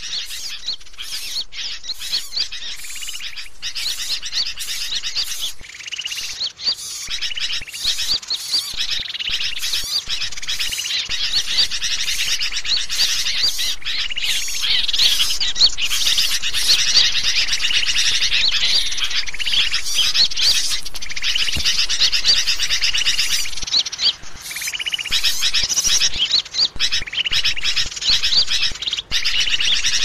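Dense chorus of many small songbirds chirping and twittering at once, a mixed-species bird-lure recording. It grows louder over the first ten seconds or so and then stays busy.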